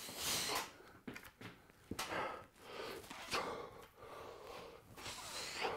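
A man breathing hard through a set of incline dumbbell presses, with several forceful breaths about a second or so apart. A few light clicks are heard between the breaths.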